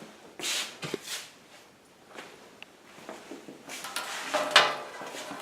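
Handling noises from the generator's wiring as the plastic connectors of the stock harness and the radio module are plugged onto the switch tabs: a few short rustles and small clicks, the loudest about four and a half seconds in.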